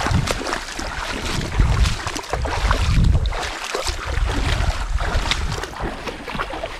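Wind buffeting the microphone in gusts, strongest about a second and a half and three seconds in, over a steady rush of water.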